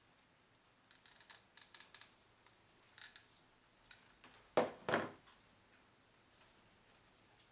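A hot glue gun set down on a wooden tabletop with two knocks about halfway through, after a run of light clicks and rustles as the lampshade fabric and glue gun are handled.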